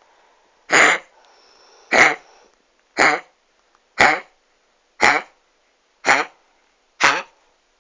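Dog with kennel cough coughing, seven short harsh coughs about one a second.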